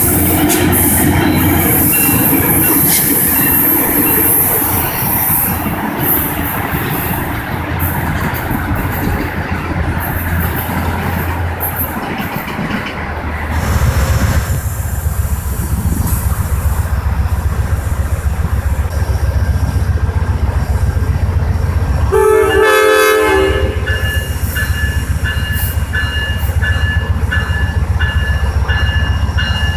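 Diesel passenger train at a station: rolling wheel noise with a high hiss, then the locomotive's engine drone comes up strongly about halfway through as the train departs. A short horn blast sounds near three-quarters of the way through, followed by a steady repeating bell-like ring.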